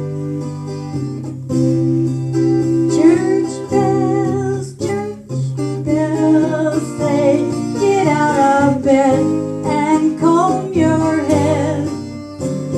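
A woman singing with vibrato over guitar accompaniment; the voice comes in about three seconds in, after a short instrumental passage.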